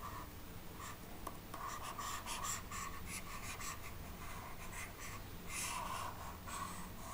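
Stylus scratching back and forth across a tablet surface in a run of short strokes, erasing writing on a digital whiteboard.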